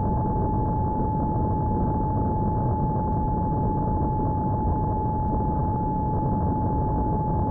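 Electric motor and propeller of a battery-powered Esky Eagle RC plane in flight, whining steadily at one pitch, over heavy wind rush on the onboard camera's microphone.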